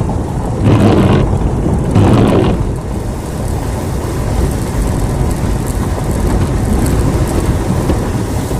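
Off-road vehicle driving along a wet dirt forest track: steady engine and rolling noise, with two louder rushes of noise about one and two seconds in.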